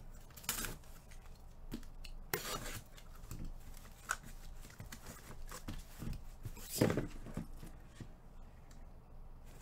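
Sealed cardboard trading-card case being cut and torn open, with a few short scraping strokes through the tape and packing and light handling of cardboard.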